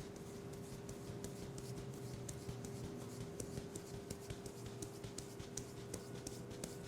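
Hands massaging a person's head, making many small, irregular clicks and crackles of skin and hair over a steady low hum.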